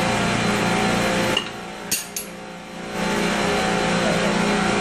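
Steady hum of running pumps and chiller machinery in a mechanical room, with several fixed tones. About a second and a half in it cuts out for roughly a second and a half, with two sharp clicks in the gap, then resumes.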